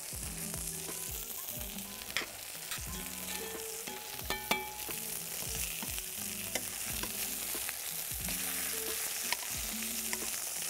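Chicken breasts sizzling steadily in a stainless steel frying pan, with a few sharp clicks of metal tongs against the pan as the pieces are turned.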